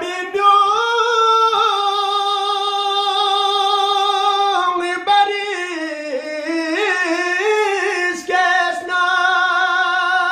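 A man singing a Balti qaseeda unaccompanied in a high voice. He holds a long, slightly wavering note, turns through quick melodic ornaments midway, and settles again on a long held note.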